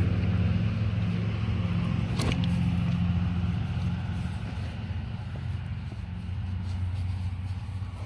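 An engine running steadily with a low hum, and a single sharp knock about two seconds in.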